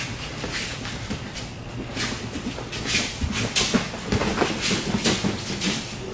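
Judogi cloth slapping and snapping in quick, irregular strikes as two judoka grip fight, hands slapping grips away and yanking lapels and sleeves, with bare feet scuffing on the judo mat.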